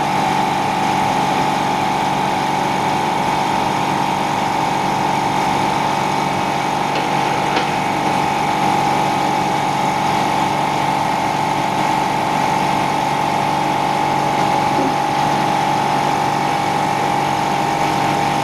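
Electric vacuum pump feeding an OCA vacuum laminating machine, running steadily with an even hum and a strong steady tone. There is a light click about seven and a half seconds in.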